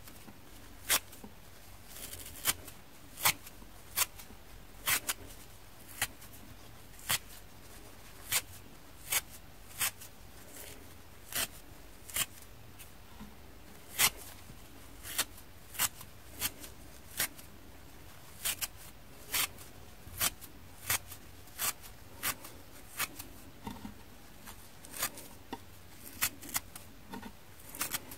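A dry scouring pad from a kitchen sponge being ripped into small pieces by hand: a steady series of short, sharp rips, about one or two a second, irregularly spaced.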